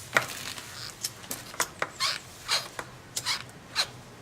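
A run of short, hissy rubbing strokes made by hand, about two or three a second at uneven spacing.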